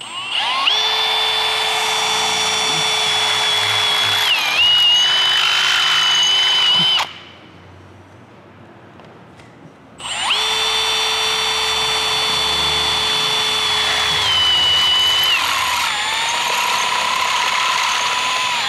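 Cordless drill boring through the sheet-metal A-pillar of a ute. There are two runs of several seconds each, a few seconds apart, each a steady high whine that dips in pitch partway through as the bit bites into the metal.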